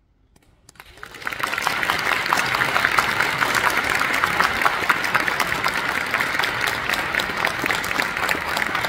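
Audience applauding. It starts just after a near-silent pause and builds to full, steady applause within about a second and a half.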